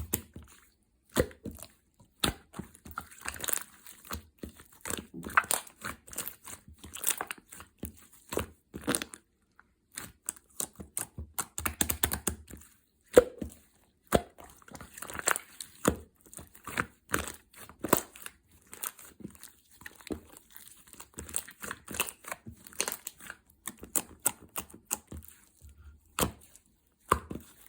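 Slime topped with a layer of clay being pressed, poked and stretched by hand, giving dense, irregular crackling and popping clicks with a couple of short pauses.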